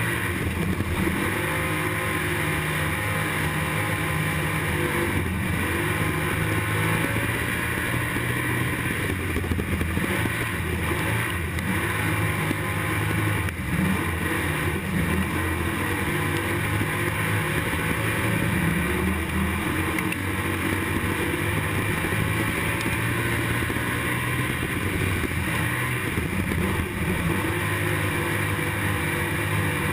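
IMCA stock car's V8 engine racing, heard from inside the car: a loud, continuous engine note whose pitch rises and falls with the throttle.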